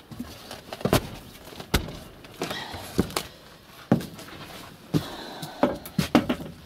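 Footsteps knocking on the wooden plank floor of a shed, slow and about one step a second.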